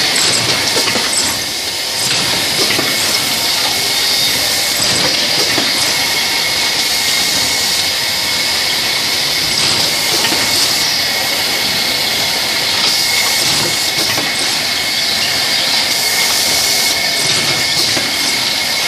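Machinery of a PVC refrigerator door gasket extrusion line running: a steady, loud mechanical noise with a hiss and a constant high whine.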